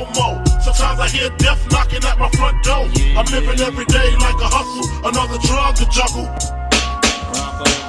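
Hip hop music with a heavy bass line and a steady drum beat, played loud for a dance performance.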